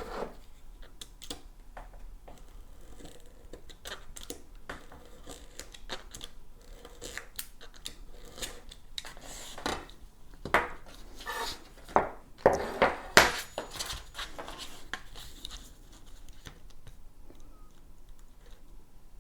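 Velcro strips and pads being handled and fitted by hand to an electric unicycle: scattered clicks, taps and rustling scrapes, with a louder run of scrapes and knocks about twelve to thirteen seconds in.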